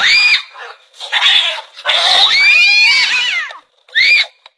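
Cats fighting: harsh hissing and yowling. There is a short yowl at the start, a longer hiss, then a longer wavering yowl from about two seconds in, and another short yowl near the end.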